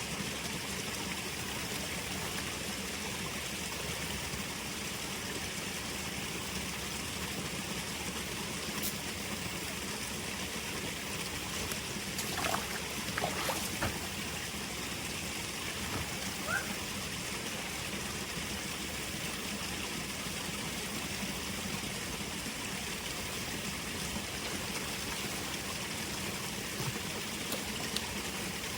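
River headwater stream flowing steadily over rocks, with a few faint brief chirps and knocks around the middle.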